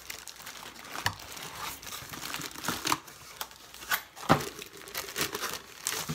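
Packaging crinkling and crackling as it is handled and pulled apart, in irregular rustles with a sharper snap about four seconds in.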